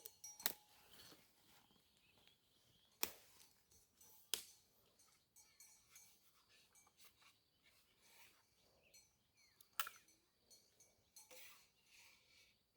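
About five sharp clicks or knocks at uneven intervals, over faint background noise.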